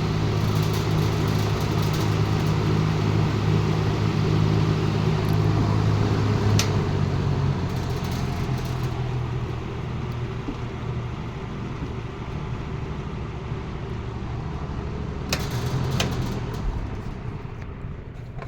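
1960s Emerson 20-inch box fan with a PSC motor and aluminium blade running, a steady motor hum under rushing air. The hum drops to a lower level about halfway through, and there are a few sharp clicks, after which the sound fades near the end.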